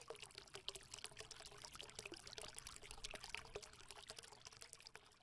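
Faint trickling, bubbling water sound made of many small irregular pops and crackles.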